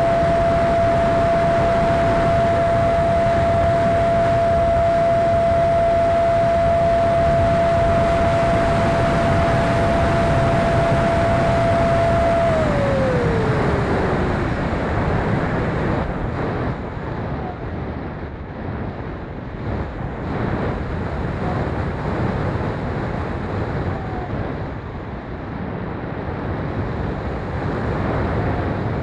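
Electric ducted fan of a Habu 50mm RC jet, heard from an onboard camera over heavy wind rush: a steady high whine that drops in pitch about 13 seconds in as the fan slows. After that, mostly uneven wind noise on the microphone.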